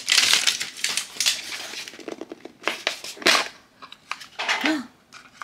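Red plastic toy capsule being pried open by hand: rustling and crinkling, then a series of sharp plastic clicks and snaps as the lid is worked loose.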